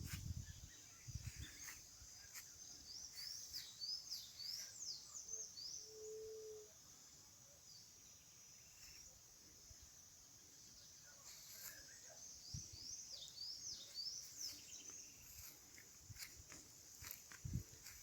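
Faint birdsong: a bird sings a rapid run of high chirps twice, about ten seconds apart, over a steady high-pitched insect drone.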